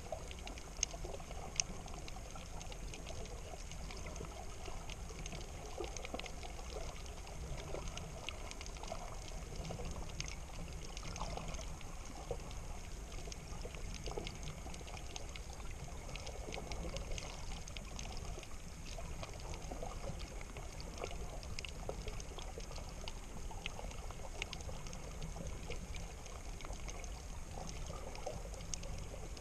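Underwater water sound picked up by a camera held below the surface over a shallow reef: a steady muffled wash and low rumble, with many small crackling clicks scattered throughout and a couple of sharper ticks about a second in.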